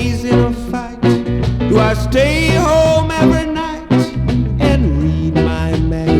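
Rocksteady reggae music playing from vinyl records on turntables, a passage without singing between vocal lines, with a steady rhythm of regular strokes and a gliding melodic line a couple of seconds in.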